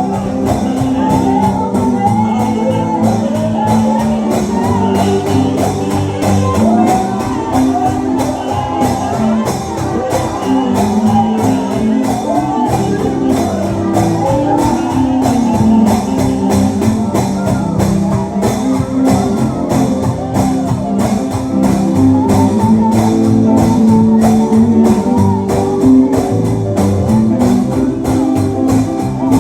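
Live gospel song: several voices singing together over guitar accompaniment with a steady beat.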